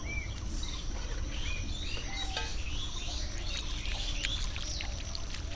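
Birds chirping repeatedly, short rising and falling calls several times a second, over a steady high insect drone and a low rumble.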